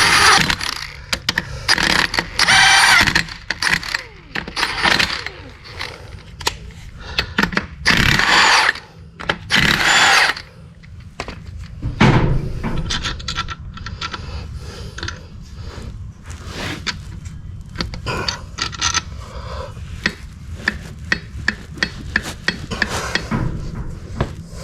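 Metal hand tools and loose engine parts clanking and scraping while the diesel engine's crankcase is worked on during a teardown. Several ringing metal strikes come in the first half, then a long run of quick light clicks.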